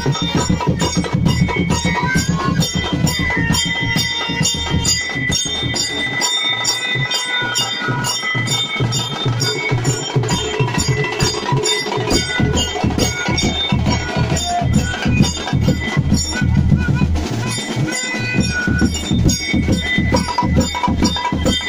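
Loud, fast percussion music: a dense, driving drum rhythm with ringing metallic strokes over it.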